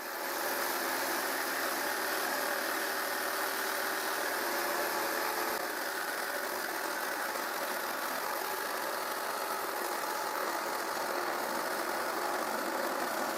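Table-mounted jigsaw with a metal-cutting blade running steadily as it cuts through 1 mm thick metal sheet.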